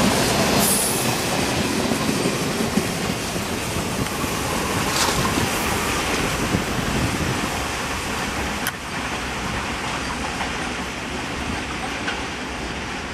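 Roll-on roll-off freight train of flat wagons loaded with lorries running past on the next track: a steady rumble of wheels on rail with clickety-clack, slowly growing quieter as the last wagons and brake van draw away, with a sharp click about nine seconds in.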